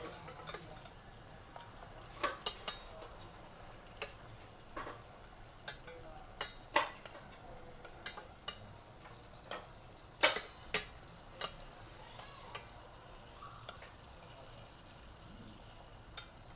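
Kitchen utensils and dishes clicking and knocking at irregular intervals during food preparation, with a loud pair of knocks about ten seconds in.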